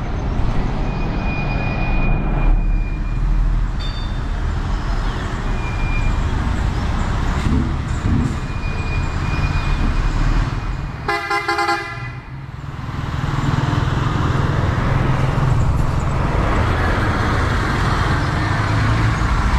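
Scania coach driving with a steady engine rumble and road noise. About eleven seconds in, a vehicle horn sounds once for about a second.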